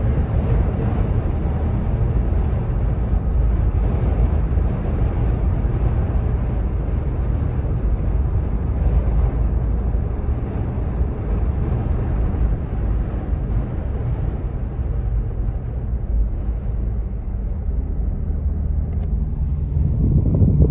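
Steady low rumble of a vehicle driving along the road.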